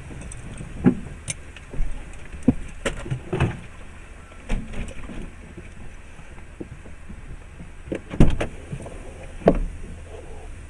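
Cab noise of a moving vehicle: a steady low engine and road hum with irregular knocks and rattles from the cab, the loudest about eight seconds in.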